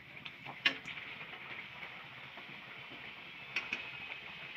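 Pea-stuffed puri sizzling as it deep-fries in hot oil in a kadhai: a steady hiss. Two or three light metal clicks come from the slotted spoon against the pan, about a second in and again near the end.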